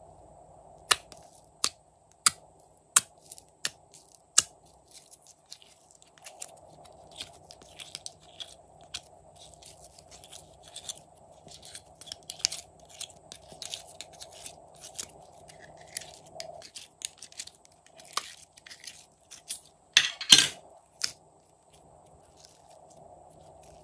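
Six sharp taps on a plastic slime container, about one every 0.7 s, then hands pulling and squeezing glossy slime with a run of small sticky clicks and crackles, loudest about twenty seconds in.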